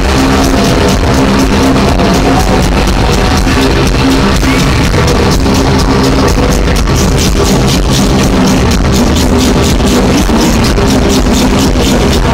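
Live rock band playing loudly through an arena sound system, heard from within the crowd: electric guitar over a steady, evenly repeating beat.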